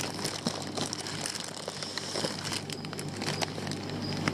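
Plastic fish bags crinkling and rustling as they are handled, a dense run of small crackles over a steady low hum.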